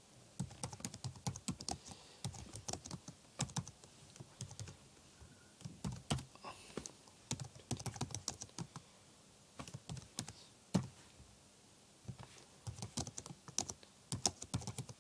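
Typing on a computer keyboard: runs of quick keystrokes broken by short pauses, with one louder key press about two-thirds of the way in.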